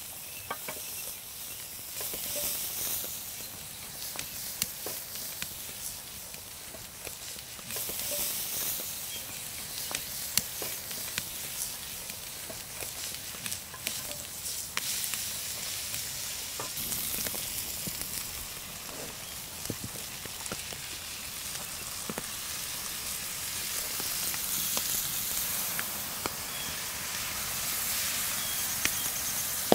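Chicken hearts frying in a hot cast iron pan over a campfire: a steady sizzle that swells at times, with scattered sharp pops and crackles.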